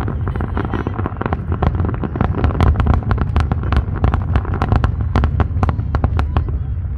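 Aerial fireworks shells bursting in a rapid, continuous barrage: many sharp cracks and pops every second over a steady low rumble.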